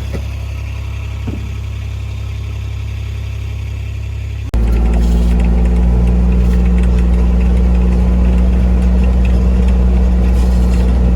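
A vehicle engine running steadily, heard from inside the cab. About four and a half seconds in the sound cuts abruptly to a louder, deeper engine drone that carries on steadily.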